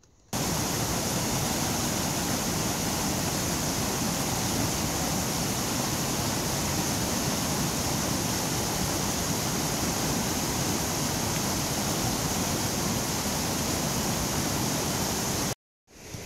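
Steady rush of fast-flowing mountain creek water, which cuts in suddenly at the start and stops suddenly near the end.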